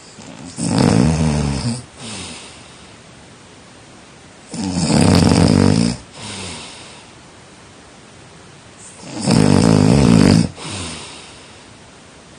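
A person snoring in sleep: three loud, rattling snores about four seconds apart, each followed by a shorter, softer breath.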